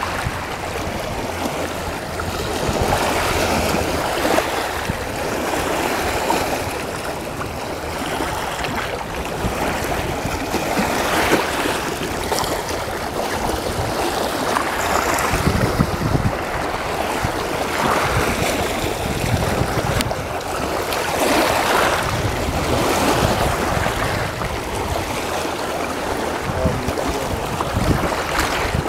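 Fast river water washing and splashing over the rocks at the shoreline, swelling and easing every couple of seconds as small waves break.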